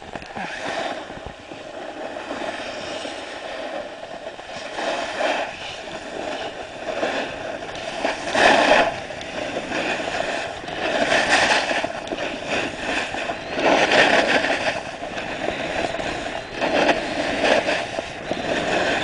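Skis scraping and hissing over firm, packed snow as a skier links turns down a groomed slope. The noise swells with each turn every couple of seconds.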